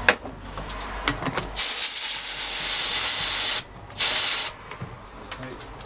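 Compressed-air blow gun blowing off a Bosch starter motor armature: one hiss of about two seconds, then a short burst of about half a second.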